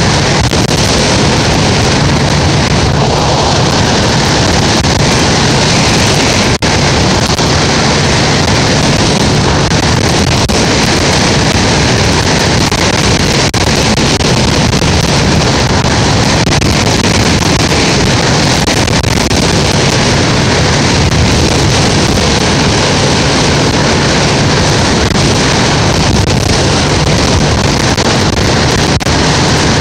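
Loud, steady wind rush buffeting the microphone of a moving vehicle at road speed, with a low engine hum beneath it and a few brief pops from the gusts.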